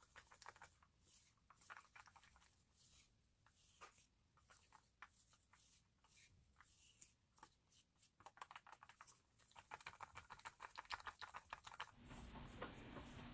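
Faint scraping and clicking of a wooden craft stick stirring a thick paint and baking-powder mixture in a metal tin can, the strokes coming faster and more often in the second half.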